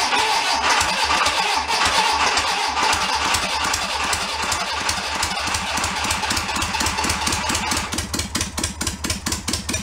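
Air-cooled VW flat-four engine firing on a squirt of fuel into the carburetor and running roughly and unevenly. In the last few seconds its beats come farther apart as it stumbles toward stalling.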